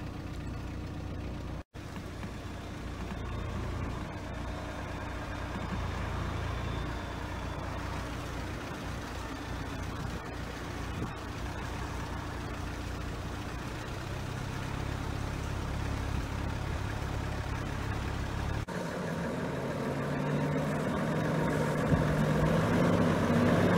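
Steady vehicle engine and road noise heard from inside a car following a heavy-haulage truck. About two-thirds of the way through, the sound changes to the Volvo tractor unit's diesel engine running as it hauls the tank-laden low-loader in, growing louder toward the end.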